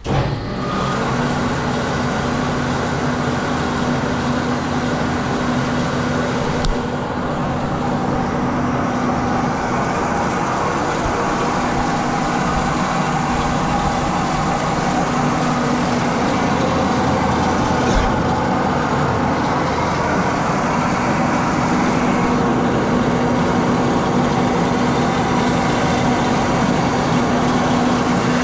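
Marvel 8-Mark-1 vertical bandsaw, three-phase 230V, switched on and running steadily with a steady hum, its coolant pump wired to run whenever the blade runs. Two light clicks sound over the running noise, one about a quarter of the way in and one past halfway.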